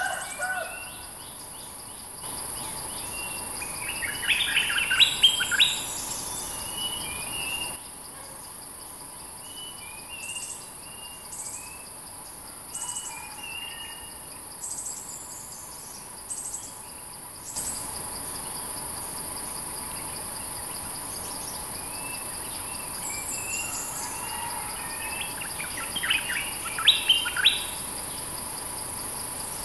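Bulbuls calling: two loud bursts of quick, bubbling song, one a few seconds in and one near the end, with short chirps in between. Insects keep up a steady high hiss underneath.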